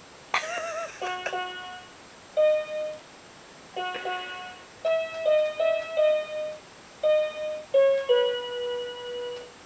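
Keyboard playing a slow closing phrase of single notes and chords, each note struck and left to fade, ending on a longer held note. A short wavering sung note comes in just at the start.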